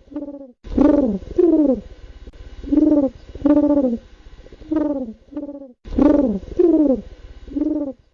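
Pigeon cooing: a string of short, low coos that dip in pitch, coming in pairs and threes.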